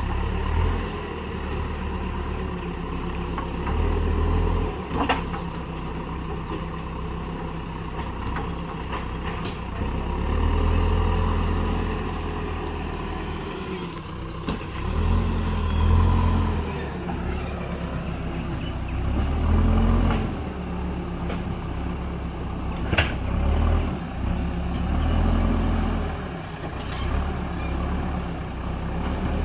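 JCB backhoe loader's diesel engine revving up and down in repeated swells as it works its hydraulics under load, with a few sharp knocks.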